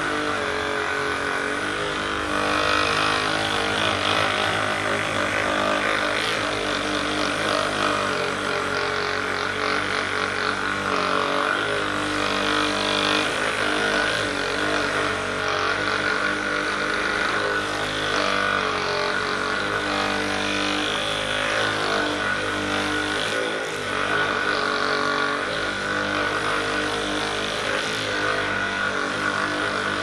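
Hypervolt percussive massage gun running steadily, its motor hum held at an even pitch as the head is pressed into the muscles around the shoulder blade.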